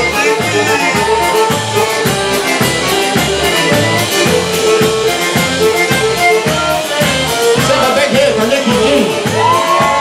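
Polka band playing an instrumental passage: accordion melody over a steady bass and drum beat, about two beats a second. A long held note comes in near the end.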